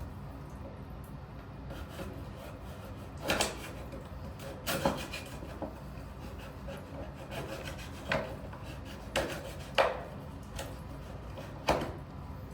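A handful of short, separate scraping strokes, a second or more apart, from a hand tool cutting down a piece that did not fit.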